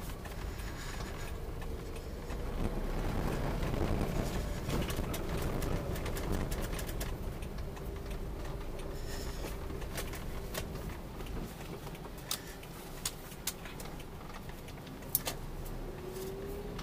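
Steady low road and engine rumble heard inside a moving car, with a few scattered light clicks in the second half.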